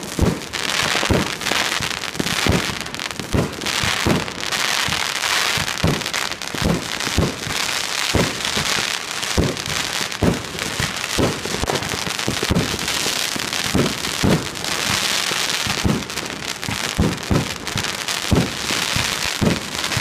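Aerial fireworks going off in a continuous run of sharp bangs, roughly two a second, over a crackling hiss from the bursting shells.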